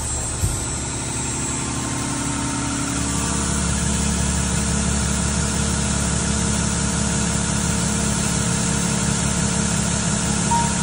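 Rug-cleaning machine running: its electric drive motor hums steadily as the rollers turn the rolled rugs, with a single short knock about half a second in.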